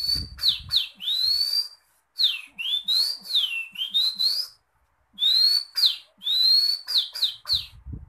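A man whistling an imitation of the oriental magpie-robin's (kacer) song: clear, high whistled notes that slur up and down, in three phrases separated by short pauses.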